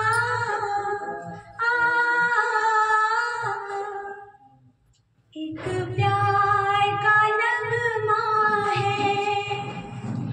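A woman singing unaccompanied into a hand-held microphone, in long held melodic phrases with a brief pause about four and a half seconds in.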